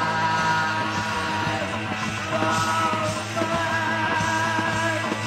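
Punk rock band playing live and loud: distorted electric guitar with held, bending notes over bass and drums, the opening of the song before the vocals come in.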